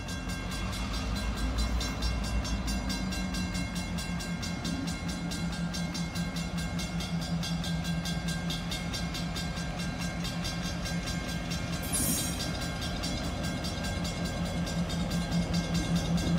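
Diesel locomotive engine running steadily as the locomotive rolls slowly closer, growing gradually louder. A short hiss is heard about twelve seconds in.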